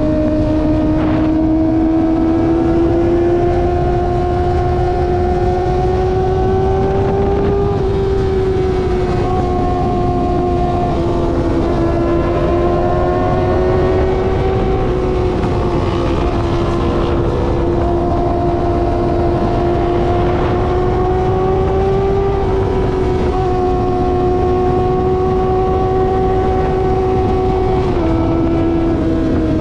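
Kawasaki ZX-25R's 249 cc inline-four engine running at steady high revs while cruising, its high buzzing note slowly rising and easing with the throttle, dipping slightly a few times, near the end included.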